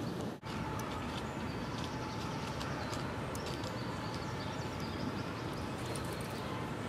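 Steady outdoor background noise with scattered faint ticks and short high chirps, cut by a brief dropout about half a second in.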